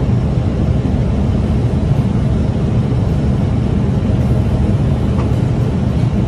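Steady, loud, deep rushing noise in an aircraft cockpit on final approach: the airflow and engines of the descending plane.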